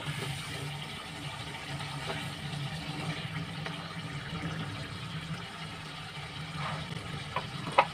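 A steady low hum with a faint hiss from a kitchen where a pan of chicken karahi cooks on a gas stove. A few short clicks come near the end, the sharpest just before it ends.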